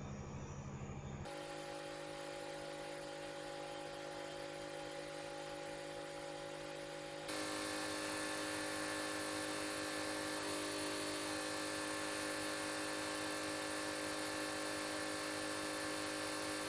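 A steady electronic hum and buzz made of several held tones, changing abruptly about a second in and again about seven seconds in, where it gets a little louder.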